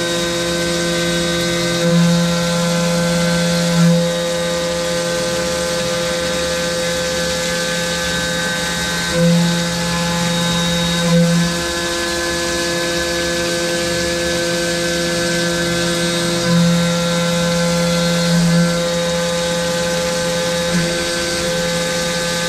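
Syil X7 CNC mill's spindle running a 1/4-inch three-flute flat endmill at 10,000 RPM through a 3D adaptive clearing cut under flood coolant. It is a steady, multi-tone machining whine that swells in loudness briefly every few seconds as the cutter's engagement changes.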